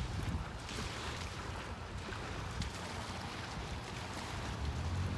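Strong wind buffeting the microphone in a low, fluttering rumble, over the steady wash of storm waves.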